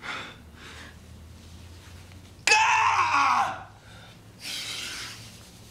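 A man's anguished, strained cry about two and a half seconds in, falling in pitch, between ragged, heavy breaths.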